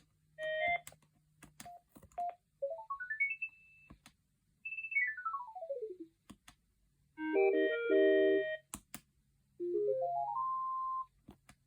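Huawei ETS3023 phone playing short preloaded electronic ringtones: a brief tune, a stepped rising run of beeps ending on a held tone, a stepped falling run, a short chord phrase, and another rising run ending on a held note, with sharp clicks between them.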